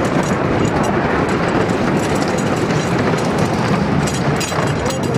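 Train of the Scenic Railway, a wooden side-friction roller coaster, running over its wooden track. It makes a steady, loud rolling noise with quick, irregular clattering.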